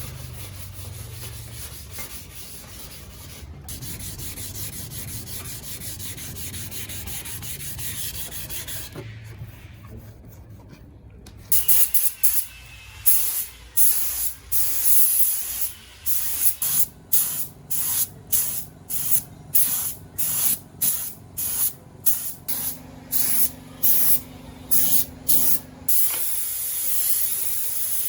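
Compressed-air spray gun hissing: a steady spray over a low hum at first. From about eleven seconds in it sprays in short bursts, roughly one a second, as the trigger is pulled and released. Near the end it sprays steadily again.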